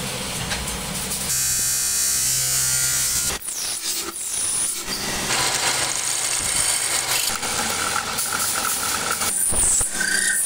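Workshop machinery running: a steady motor buzz that changes abruptly several times, with a high whine from about one to three and a half seconds in.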